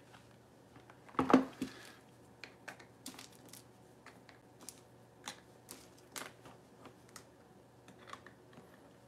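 Small plastic paint pots and their stir sticks being handled: scattered light clicks and taps of plastic, the loudest just over a second in.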